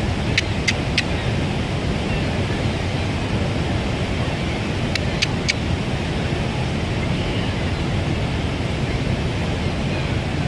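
Steady wind and surf noise across the microphone, broken twice by a quick run of three short sharp clicks, once near the start and again about halfway through.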